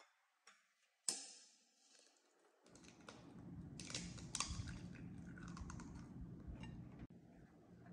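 A hen's egg cracked sharply on the rim of a glass bowl about a second in. It is followed by a stretch of quick small clicks and rustling as the shell is pulled apart and handled.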